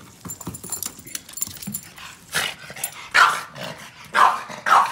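Boston terrier barking four times in quick succession in the second half, after a couple of seconds of scuffling clicks and rustling.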